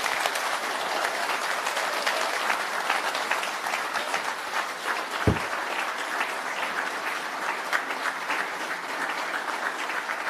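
Audience applauding steadily, many people clapping at once, with one brief low thump about five seconds in.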